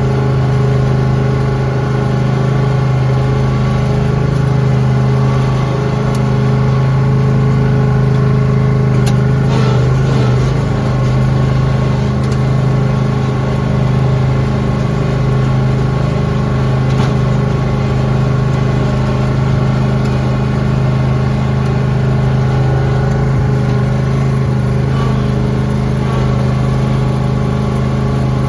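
Lawn tractor engine running steadily, its speed wavering slightly.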